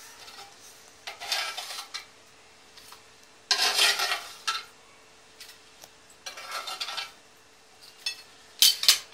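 A metal spatula scraping along a broiler tray as small qatayef pancakes are lifted off and set down, in four short spells of scraping. The loudest come about a third of the way in and near the end.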